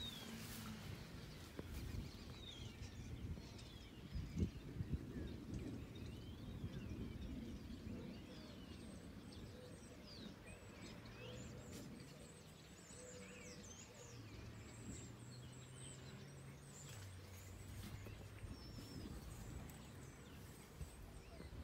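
Field ambience: many small birds chirping and twittering, scattered all through, over a low rustling rumble of leaves and wind. There are a few louder rustles and knocks in the first five seconds, and a low steady hum in the second half.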